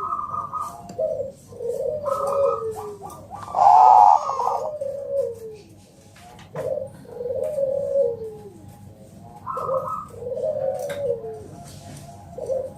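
Perkutut Bangkok (zebra dove) cooing, a string of repeated phrases of quick stuttering notes that fall in pitch, one phrase every second or two; the loudest comes about four seconds in.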